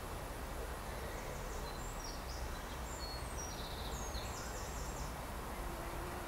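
Open-field ambience: a steady rushing background noise with a small songbird singing a quick series of high, short chirps for a few seconds. A faint steady hum joins near the end.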